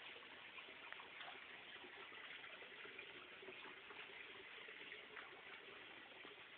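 Faint steady sound of running water.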